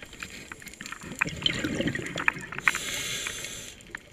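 Underwater sound on a scuba dive: scattered sharp crackling clicks, which the diver says are fish feeding, then about three-quarters of the way in a roughly one-second rush of the diver's exhaled bubbles from the regulator.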